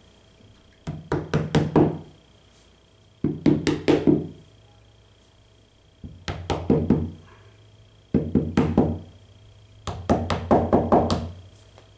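A hammer lightly tapping through a towel to drive screw caps fully into their holes on an office chair's armrest bracket. There are five quick runs of about four to six taps, each run about a second long, with short pauses between them.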